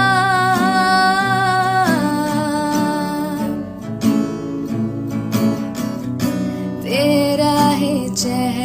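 Song accompanied by acoustic guitar, with a singer holding a long note for about the first two seconds. Then the guitar plays alone, and a short sung phrase with a sliding pitch comes near the end.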